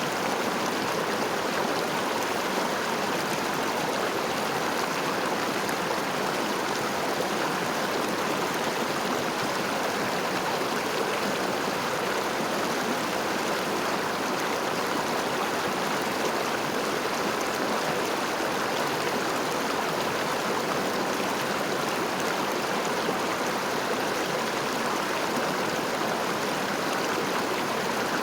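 River water flowing steadily over stones, an even rushing and babbling with no breaks.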